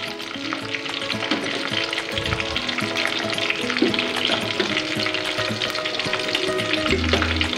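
Chicken pieces deep-frying in hot oil in an aluminium kadai, a dense crackling sizzle, during their second fry. Near the end a slotted spoon stirs through the oil.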